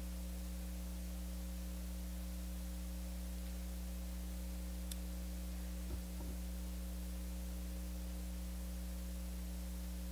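Steady electrical mains hum at several fixed pitches, with one faint click about five seconds in and a soft knock a second later.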